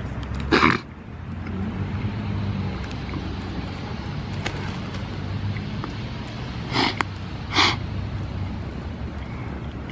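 Three short, loud breaths forced out through the nose or mouth, one about half a second in and two close together around seven seconds in, over a steady low rumble.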